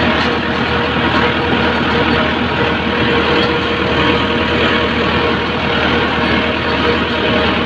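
Tractor engine running steadily, powering a mounted boom sprayer that mists the crop; a loud, even drone with no breaks.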